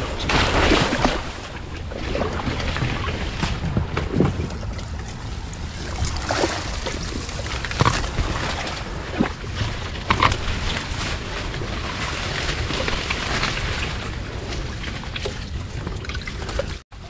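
Leaves and stems rustling and crackling as someone pushes through dense water hyacinth and shrubs at the water's edge, with some water sloshing and wind buffeting the microphone.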